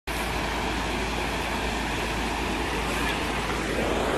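Muddy floodwater rushing along a flooded street, a steady noise.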